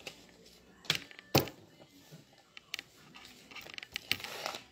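Sharp knocks and clicks of a rolling pin and a sheet of cold-porcelain clay being handled on a tabletop, the loudest about a second and a half in, with a brief rustling scrape near the end.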